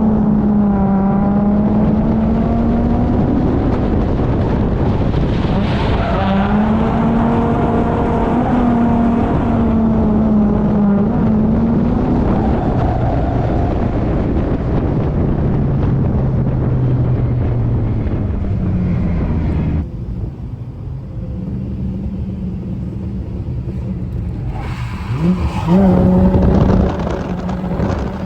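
Holden Commodore's Ecotec V6 engine held at high revs through a drift, its pitch wavering with the throttle over tyre noise. About twenty seconds in it eases to a lower, quieter note, then revs hard again near the end.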